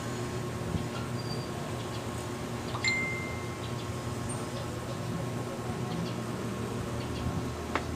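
Tattoo machine running steadily with a low, even buzz, with a few faint clicks and a short high-pitched tone about three seconds in.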